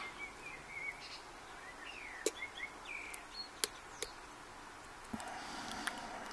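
A handful of sharp, isolated clicks from a lock pick working the spool and serrated pins of a Commando Blackout padlock under very light tension. A small bird chirps faintly in the background during the first half.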